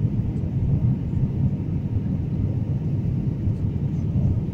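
Steady low rumble of an airliner in flight heard from inside the cabin: engine and airflow noise with no breaks or distinct events.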